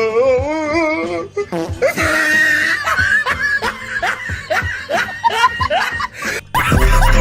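Music with laughter. A wavering voice held on one note comes first, then a run of short laughing sounds. A louder, bass-heavy music track cuts in near the end.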